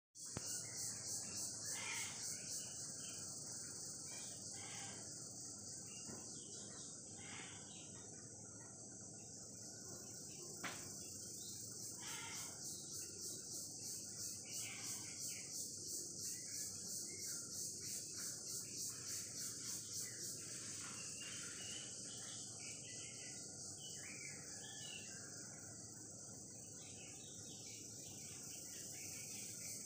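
Insects trilling in a steady high-pitched chorus that pulses regularly, with scattered short chirps and a single sharp click about ten seconds in.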